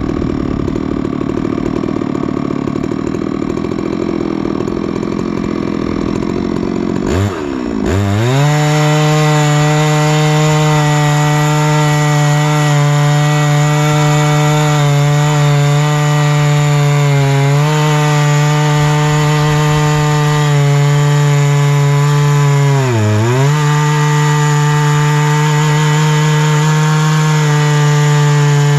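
Chainsaw mill ripping a tamarack log, with the saw's engine running hard under load and a chain with freshly reprofiled teeth. About seven seconds in the engine pitch dips briefly, then holds steady and higher, sagging briefly twice later on.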